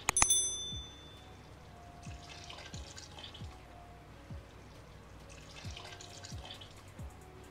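Water poured from a drinking glass into a pot of simmering keema, splashing in bursts, over background music with a steady low beat. A couple of clicks and a short ringing chime right at the start.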